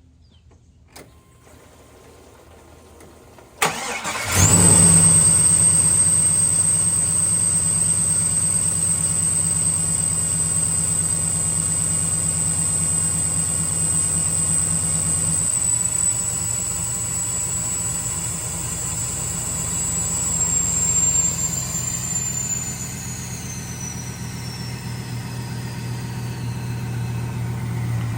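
The 1978 Caprice's swapped LS V8 cranks for under a second and catches quickly, then settles into a steady idle. A high whine holds steady with the running engine and falls in pitch over the last several seconds as the idle settles.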